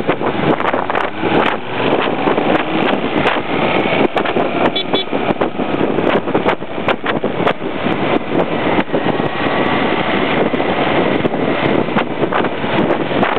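Wind buffeting a camera microphone on a moving motorcycle, a loud steady rush broken by frequent short gusty thumps, with the motorcycle's engine and road noise beneath it.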